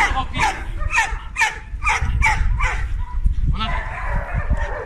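Dog barking in a quick, even series, about two barks a second, stopping after about three seconds, with a rougher, longer dog sound near the end.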